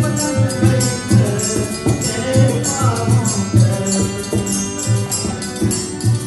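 Live Indian folk-style band music: a harmonium sustaining chords and melody over a steady low drum beat, with quick metallic percussion ticking on top.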